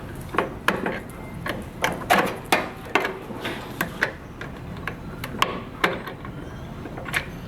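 Hand tools and metal parts being worked inside a microwave oven during removal of its high-voltage capacitor: a series of sharp, irregular clicks and knocks, about two a second.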